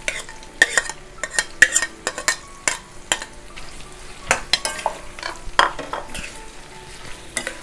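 Sliced onions sizzling in hot ghee and oil in a steel wok, just tipped in and being stirred with a steel spatula that scrapes and clinks against the pan many times, irregularly.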